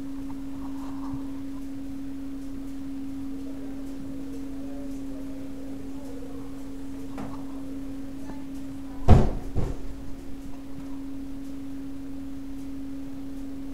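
A steady, even hum on a single pitch, with two sharp knocks about nine seconds in.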